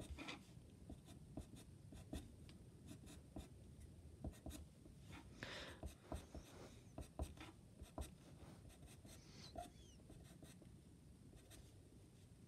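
Faint scratching of a sharp Faber-Castell Pitt pastel pencil on sketch paper in many short, quick strokes, laying in fine fur hairs.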